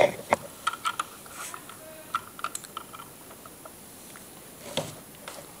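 Scattered light clicks and taps of hands handling small plastic LEGO pieces, mostly in the first few seconds, with one more near the end.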